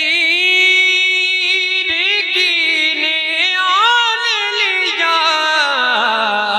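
A man's solo voice chanting an Urdu naat in tarannum style, without words: he holds one long note, breaks into quick ornamental turns about halfway through, then steps down in pitch toward the end.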